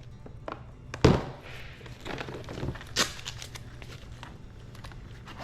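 Rummaging through a box of belongings: a dull thump about a second in as something is set down, a sharper knock near three seconds, and light rustling and small clicks between.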